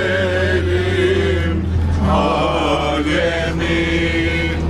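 Several people singing a chant-like song together inside a moving coach, holding long wavering notes, over the steady low drone of the bus.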